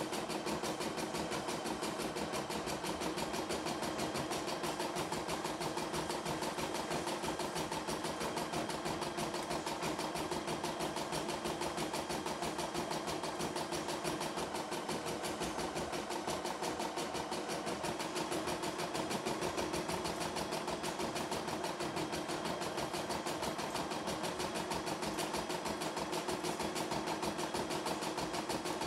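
CNY E960 computerized embroidery machine stitching a design, its needle running in a fast, even rhythm at a constant level.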